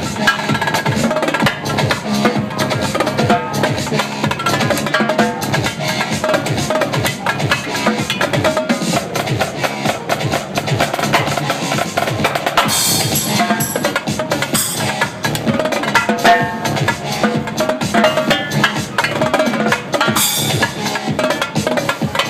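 Live drum-corps-style percussion on a Mapex drum kit with Paiste cymbals, played over DJ dance music: dense, fast drum strokes, with three short cymbal crashes in the second half.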